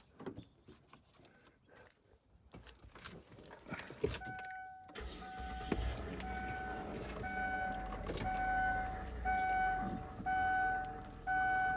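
Clicks, then the 2002 Kia Sedona's V6 starts about five seconds in and idles. A dashboard warning chime beeps about once a second over the idle.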